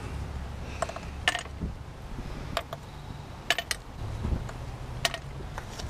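Light metallic clicks and clinks of spark plugs and hand tools being handled over an engine, about six scattered through, over a steady low hum.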